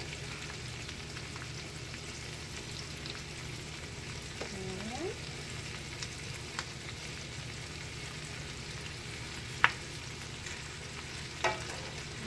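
Cabbage frying in butter and canola oil in a cast-iron skillet: a steady sizzle, with a few sharp clicks, the loudest a little past halfway.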